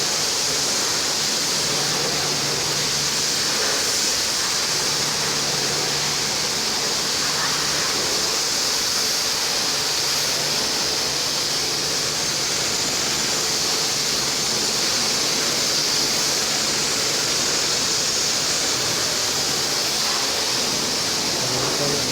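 High-pressure washer gun spraying water onto a car, a steady loud hiss, as the soap is rinsed off.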